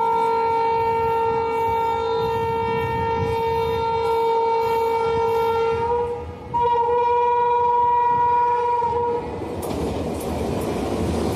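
Train horn of an arriving locomotive sounding one long steady blast, which breaks off for a moment about six seconds in and then sounds again for about three seconds. After the horn stops, the rumble and clatter of the train rolling in takes over.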